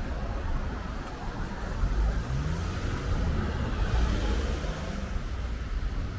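Road traffic at a busy city intersection: car engines and tyres passing in a steady low rumble, with one engine rising in pitch about two seconds in as a vehicle speeds up.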